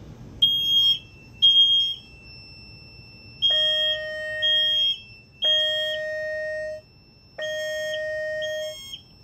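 Test fire alarm system on a Fire-Lite MS-2 panel going into alarm after a pull station is pulled. A steady high beep comes on within the first second, with two short high beeps. From about three and a half seconds in, the appliances sound a lower alarm tone in repeated blasts of about one and a half seconds with short gaps.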